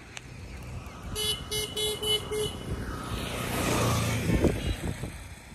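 A road vehicle's horn toots five short, quick times, then a motor vehicle passes close by, its sound swelling and fading away.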